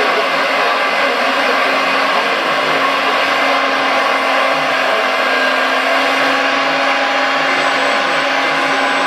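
Premacon Liebherr R956 RC excavator digging, its onboard sound module playing a steady, loud imitation of the real machine's diesel engine, with no pauses.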